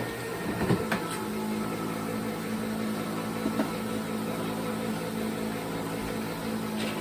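A kitchen appliance hums steadily, with a low, even tone; it comes on about a second in, just after a couple of clicks.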